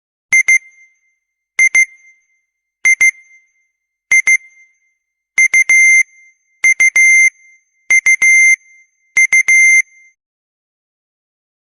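Old mobile phone ringtone of high-pitched electronic double beeps, one pair about every second and a quarter. From about halfway through, each beep of the pair is held longer.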